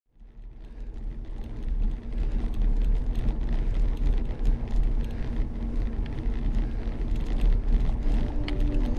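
Bicycle tyres rolling over a loose gravel chip road with wind rumbling on the handlebar camera's microphone, a steady noise full of small crunching ticks that fades in over the first two seconds.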